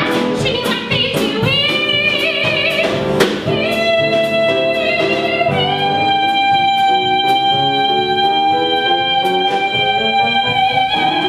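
A woman sings a musical-theatre number over instrumental accompaniment. After a quick sung phrase she holds one long high belted note from about six seconds in, which is the song's closing note, while the accompaniment keeps moving underneath.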